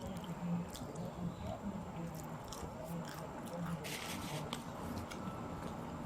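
A person chewing food close to the microphone, with wet mouth sounds and scattered small clicks.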